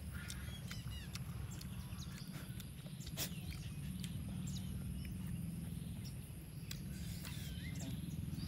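Birds chirping in short, scattered calls over a steady low rumble and a steady high whine, with one sharp click about three seconds in.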